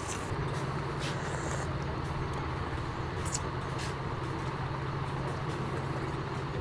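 A motor running steadily with a low, even hum that starts just after the beginning, over a background haze, with a few faint clicks.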